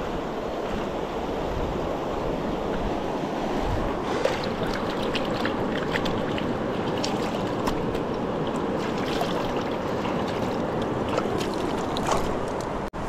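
Steady rush of a fast-flowing river, with scattered small clicks and taps from about four seconds in.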